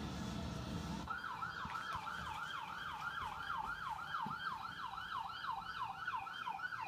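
Fire truck siren played through a TV's speakers: after about a second of low rumble it switches to a fast yelp, a rapid up-and-down whoop about three times a second.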